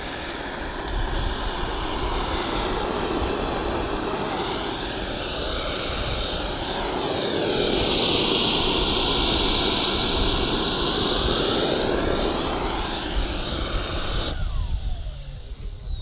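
Kingtech K45 jet turbine of a Freewing A-10 Warthog model running at taxi power, a steady whine that grows loudest about halfway through as the model rolls past. Near the end the turbine is shut down and its whine falls steadily in pitch.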